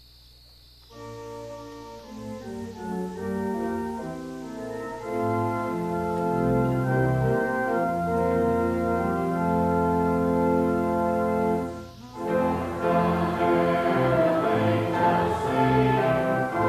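Church organ playing a slow piece in held chords, starting about a second in; it breaks off briefly near the end and comes back fuller.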